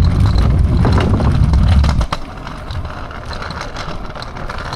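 Wind buffeting the microphone: a heavy low rumble that cuts off abruptly about two seconds in, leaving a lighter rushing hiss.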